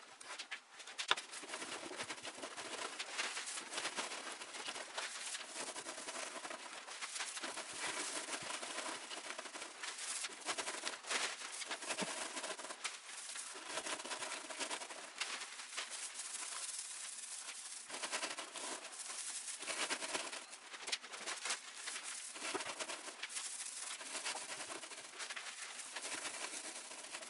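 Loose, dry, grass-like upholstery stuffing being pulled and teased apart by hands in a chair seat: a continuous crackling rustle full of small clicks, with one sharp snap about a second in.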